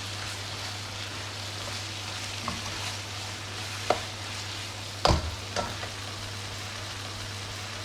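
Chicken liver and heart curry sizzling steadily in a pan, with four sharp knocks of a utensil against the pan, the loudest a little past the middle.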